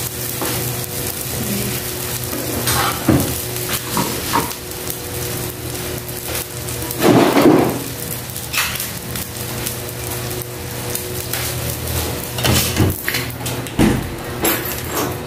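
Kangkong and egg soup simmering in a pan on a gas stove, a steady sizzle and bubbling. There is a louder clatter about seven seconds in, then a few knocks near the end as a glass lid is set on the pan.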